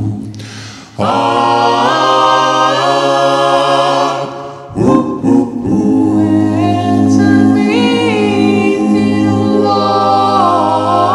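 A cappella doo-wop group of four men and a woman singing in close harmony without instruments: held chords over a steady bass voice. The voices fall away just before a second in and again about four and a half seconds in, each time coming back in on a new chord.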